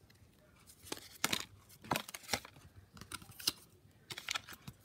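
Pokémon trading cards being rearranged in the hands: a string of short papery scrapes and rustles at an irregular pace.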